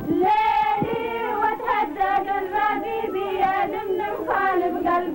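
A group of women singing together in unison, holding long notes.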